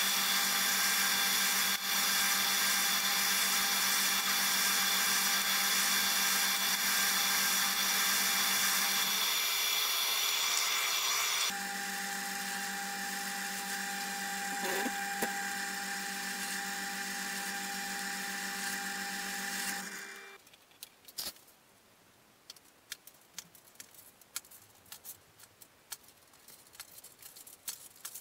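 An electric power tool motor running steadily, its tone shifting about eleven seconds in, then stopping about twenty seconds in; after that, light scattered clicks and taps.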